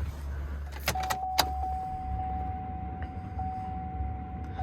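Two sharp clicks of a key in the ignition of a 2006 GM pickup, then a single steady electronic warning tone from the dash with faint regular ticks in it, sounding with the key on before the LBZ Duramax is cranked.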